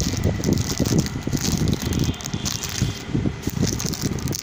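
Rough, crackling rumble of noise on the microphone, irregular and dense throughout.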